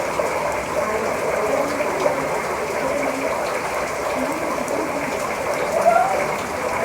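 Heavy rain pouring down in a steady, dense hiss, with faint voices now and then.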